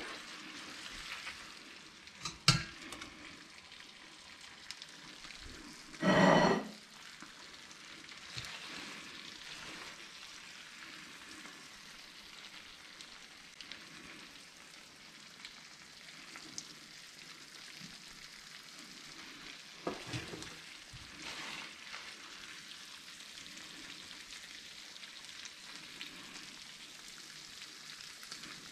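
Spaghetti with prawns in a cream sauce sizzling in a frying pan while it is stirred with a wooden spoon and lifted out with a spaghetti server. A few knocks of utensils against the pan, the loudest a short clatter about six seconds in.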